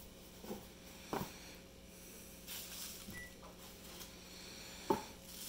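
Packaging being handled: a bubble-wrapped drinking horn lifted and turned over a cardboard box, with faint rustling and a few short crackles and knocks, the sharpest about five seconds in.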